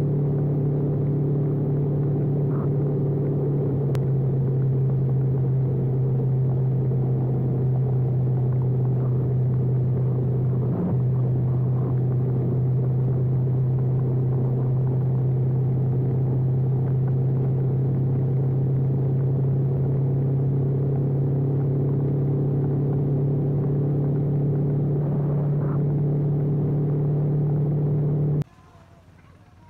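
Honda CBR500R's parallel-twin engine running at a steady cruising speed, a constant droning note under wind and wet-road noise. It cuts off suddenly near the end.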